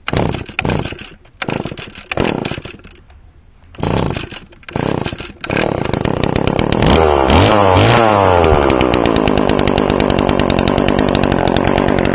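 Old nitro-fueled string trimmer (whipper snipper) motor, about 35 years old, sputtering in short bursts, then catching about five seconds in and running steadily. It is revved up and down briefly near the middle before settling into a steady high run.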